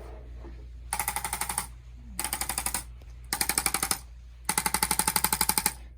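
Handheld electric percussion device firing rapid taps, about a dozen a second with a buzzing whine, in four short bursts. The last burst is the longest.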